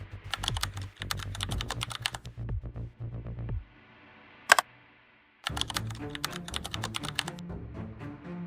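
Background electronic music with a steady beat of crisp, clicky percussion over a bass line. The beat drops out about three and a half seconds in, with one sharp hit in the gap, and comes back near the middle.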